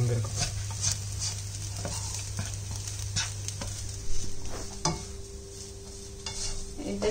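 Rice frying in a nonstick pan, stirred and turned with a slotted spatula: irregular scrapes and taps of the spatula against the pan over a light sizzle.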